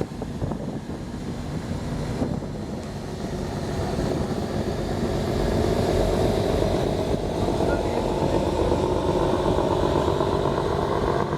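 Marine diesel engine of a ship running steadily, a low throb that grows louder from about four seconds in.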